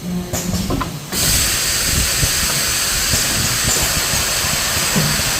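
Blister packaging machine running: a loud, steady hiss starts abruptly about a second in, over light irregular knocking, after a few clicks.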